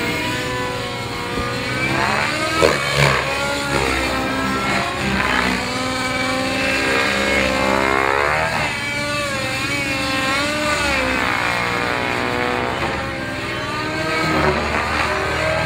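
Radio-controlled helicopter with a YS nitro engine flying aerobatics, the engine and rotor note swinging up and down in pitch as it swoops and turns. Two brief louder peaks come about three seconds in.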